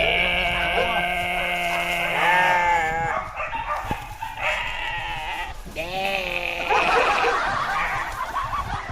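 Drawn-out bleating calls: one long wavering bleat lasting about three seconds, then shorter bleats near the middle.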